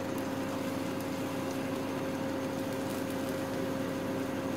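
Steady electric hum of a cooktop: a low drone with a second, higher tone above it, over a faint even hiss.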